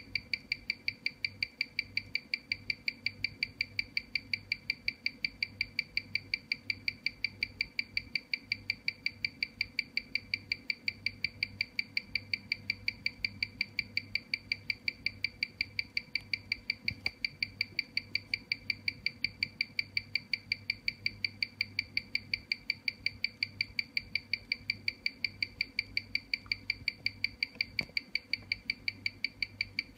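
Omega Constellation cal. 561 watch movement ticking steadily on a timegrapher, about five and a half ticks a second, its 19,800-beats-an-hour rhythm.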